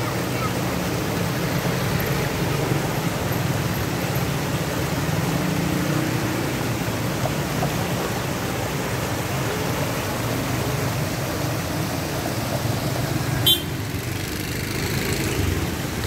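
Water pouring over a small weir into a channel: a steady, even rush. There is one brief click late on.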